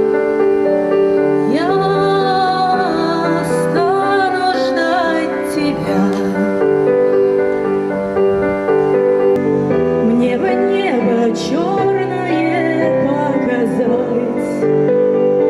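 Music: a song with held instrumental accompaniment, and a female voice singing two long phrases over it.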